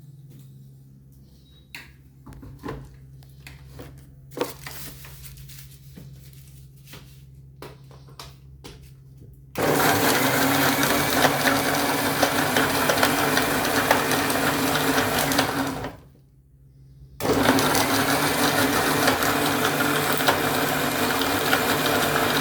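Electric juicer-mixer blending chopped amla with water, ginger, curry leaves and whole peppercorns. It runs for about six seconds, stops for a moment, then runs again. Before it starts there are a few scattered clicks and knocks.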